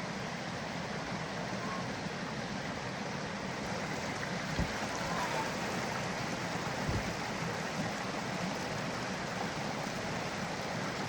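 Creek water running steadily, with two brief low thumps about four and a half and seven seconds in.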